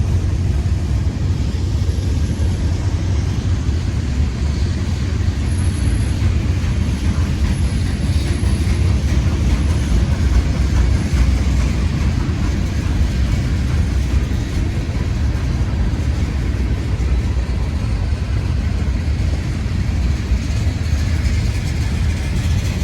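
Two freight trains rolling past on adjacent tracks, a manifest of empty gondolas and an intermodal: a steady, loud low rumble of wheels on rail.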